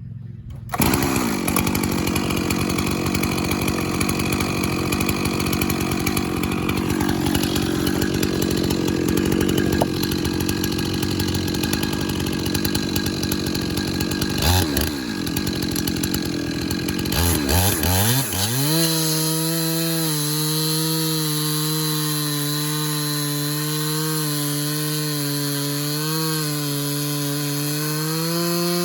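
Stihl MS 400 C-M two-stroke chainsaw mounted in a Granberg small log mill, starting about a second in and running at high revs while ripping cants into boards. It dips briefly twice around the middle, then settles into a steady, even engine note for the last third.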